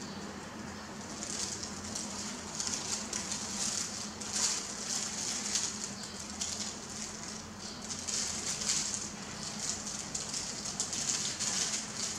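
Crinkly, irregular rustling and crackling of thin plastic food-prep gloves as hands handle rice paper and ingredients, over a faint steady hum.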